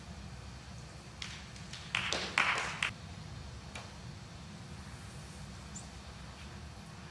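Snooker cue and balls clicking: a single tap a little over a second in, then a quick cluster of sharp clicks and knocks between about two and three seconds in, and one last click near four seconds, over a faint low hum.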